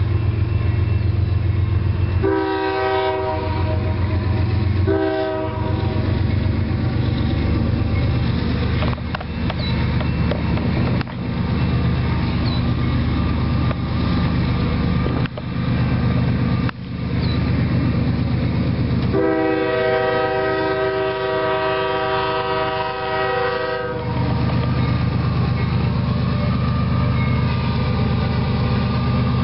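Diesel freight locomotive air horn sounding at a grade crossing: two short blasts a few seconds apart, then one long blast, each a chord of several notes. Underneath is the steady low rumble of the CSX lead locomotives' diesel engines and the train rolling past.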